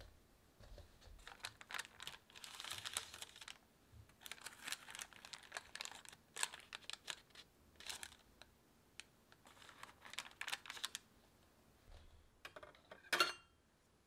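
Baking paper crinkling and rustling in irregular bursts as the baked crumble slab is handled and lifted out on it, with loose crumbs pattering. Near the end comes one louder sharp clack with a brief ring.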